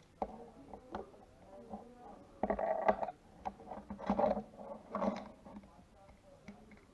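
Small plastic parts being handled: two sharp clicks in the first second, then short bursts of scraping and rattling about two and a half, four and five seconds in.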